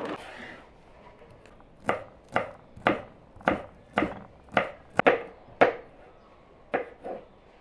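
A kitchen knife chopping a green pepper on a wooden cutting board: about ten sharp strokes, roughly two a second, with a short pause before the last two.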